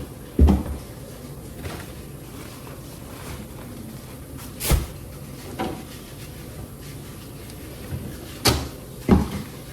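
Refrigerator being cleaned out: about five sharp knocks and clatters of plastic drawers, shelves and containers being handled, the strongest about half a second in, near the middle and near the end, over a steady low hiss.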